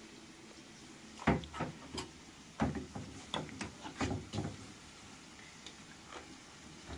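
A quick run of knocks and clatters, like objects being set down and handled, between about one and four and a half seconds in, followed by a few faint ticks.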